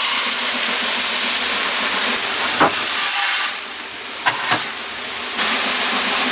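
Combine harvester running: a loud, steady machine hiss with a low hum. A few sharp clicks come in the middle, and the noise drops for about a second and a half.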